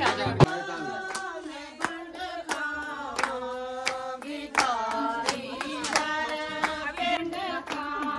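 Group of women's voices singing together to steady hand claps, about one and a half claps a second. There is no drum. Dhol drumming breaks off just after the start.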